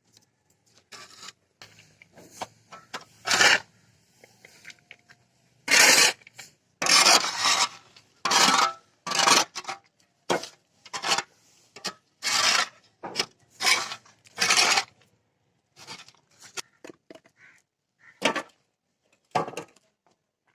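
A series of scraping strokes, roughly one a second and uneven in strength, the loudest in the middle stretch.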